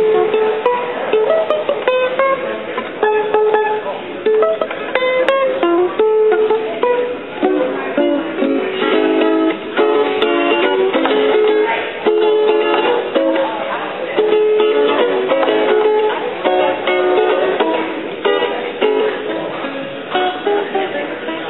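A ukulele played solo, picking out a melody of distinct plucked notes.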